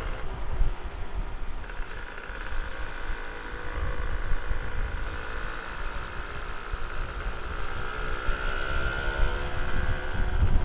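Yamaha V80 two-stroke motorcycle fitted with a Kawasaki Ninja R cylinder block and head, running on the road at a fairly steady engine note that rises and falls slightly. Heavy wind rumble on the microphone from the riding speed.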